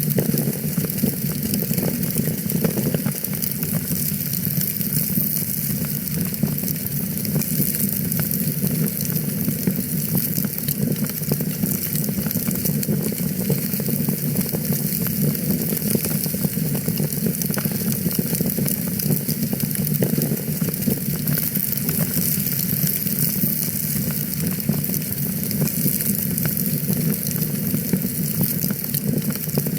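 Wood fire in a fireplace burning steadily, with a continuous dense crackle of many small pops over a low rushing hiss.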